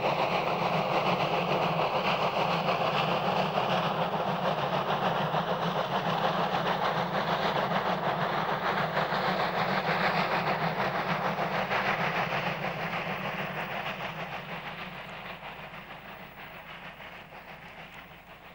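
Three-cylinder class 44 freight steam locomotive working hard under a heavy 2000-tonne freight train on its load test run, its exhaust chuffing in a rapid steady beat with the train rolling behind. The sound fades steadily over the last several seconds as the train draws away.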